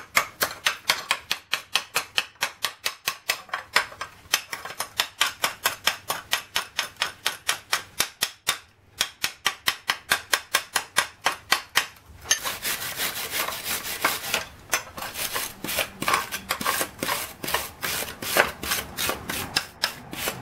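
Pointed chipping hammer striking a fresh stick-weld bead on a steel bracket held in a vise, knocking off slag: an even run of sharp metallic taps about three a second. About twelve seconds in, the strokes get faster and scratchier, with a continuous scraping hiss under the taps.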